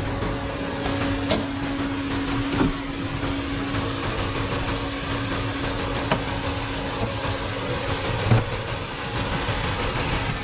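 2019 Honda Odyssey's engine idling warm under an open hood, with the electric condenser fan whirring steadily while the radiator fan stays off. The dead radiator fan is the cause of the engine overheating at idle. A few short knocks sound in the background, the loudest near the end.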